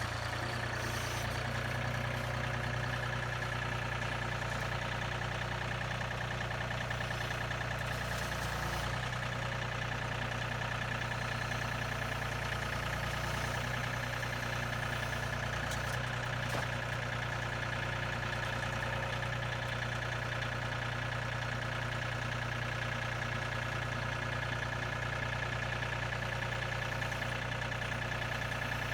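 Engine running steadily at an even idle, with no change in speed or load.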